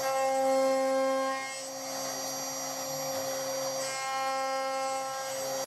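CNC router spindle whining steadily while its end mill cuts a slot into an aluminium part. The cutting sound is louder for the first second and a half, eases off, and picks up again from about four seconds in.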